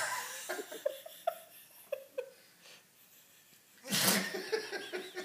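People laughing, with a Weimaraner dog's short, sharp sneeze about four seconds in.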